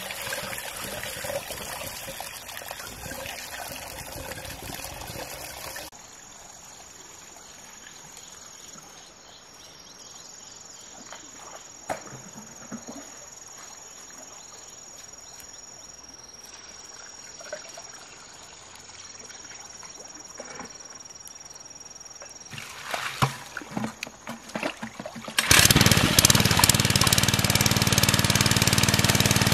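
A small engine-driven water pump comes in suddenly about four seconds before the end and runs loudly and steadily, the loudest sound here, its outlet pipe gushing water. Before that, water splashes for the first several seconds, then comes a quieter stretch with a steady high insect whine and a few clatters.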